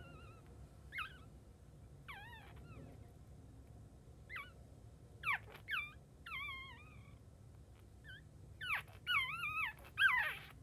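Newborn Chihuahua puppy crying: a string of short, high-pitched wavering squeaks, coming quicker and loudest near the end.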